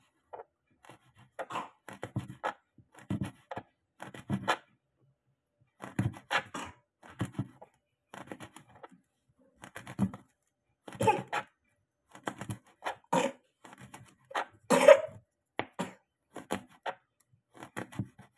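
Small knife cutting kaffir lime leaves into small pieces on a plastic cutting board: irregular clusters of short cuts and taps with short pauses between.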